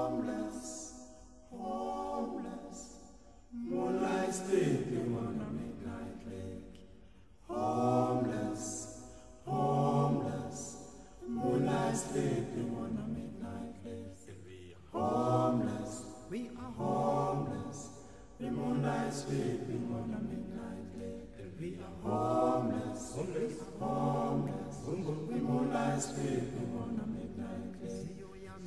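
Background music of singing voices, phrase after phrase every two to three seconds, each starting loud and fading.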